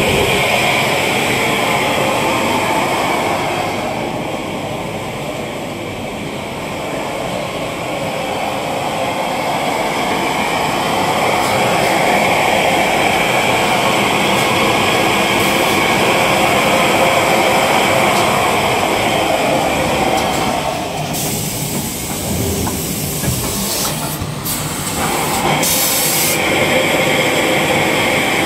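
Toilet-paper roll conveying and film-packing machinery running with a loud, steady mechanical noise. Several short hisses come about three-quarters of the way through.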